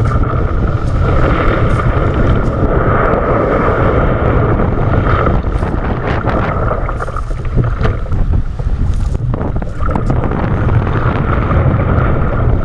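Strong wind buffeting the microphone in a loud, continuous rumble, over the hiss and slap of choppy waves and splashing around a sea kayak, with irregular splashes as the paddle strikes the water.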